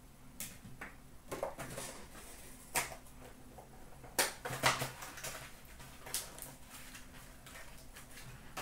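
Hard plastic card holders and card packaging being handled and set down on a glass counter: scattered clicks and taps with light rustling, and a louder cluster of taps a little past halfway.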